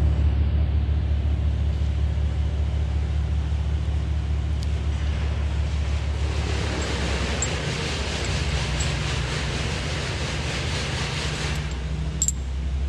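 An engine idling steadily with a low, even hum. A hiss rises over it about halfway through, and there is a sharp click near the end.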